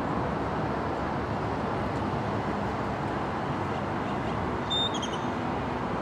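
Steady hum of road traffic and city background noise, with one short high chirp about five seconds in.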